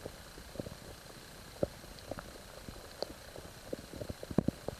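Underwater river sound picked up by a submerged camera: irregular soft knocks and taps over a steady hiss, with a cluster of louder knocks near the end.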